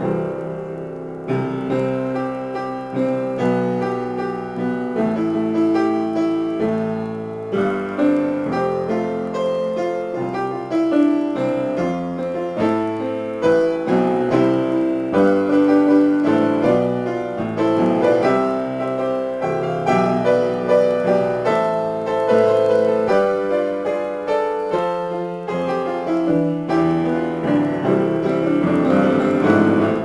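Solo piano playing an unbroken improvisation, with a dense, steady stream of struck notes and chords.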